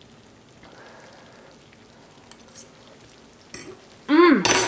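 Faint sizzling from a pot of cabbage cooking on the stove, with a few soft clicks. Near the end, a woman's loud, pleased 'mmm' as she tastes it.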